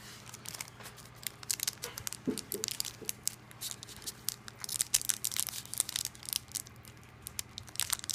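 Foil Pokémon TCG booster pack wrapper crinkling and tearing in the hands as it is worked open, in a dense run of crackles that gets loudest about halfway through.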